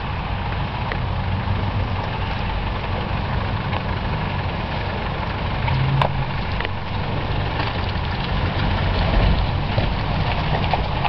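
Land Rover Discovery's 300Tdi four-cylinder turbodiesel running at low revs as the 4x4 crawls off-road through a muddy bomb hole, with a few clicks and knocks, the sharpest about six seconds in.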